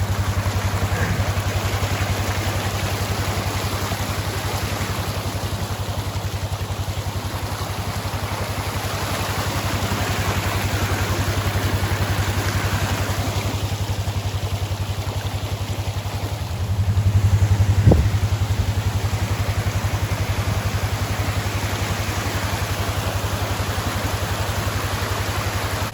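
Vehicle engine idling steadily with an even low hum, under a broad rushing hiss of floodwater running in a roadside ditch. The engine noise swells briefly about two-thirds of the way through and ends in a single sharp knock.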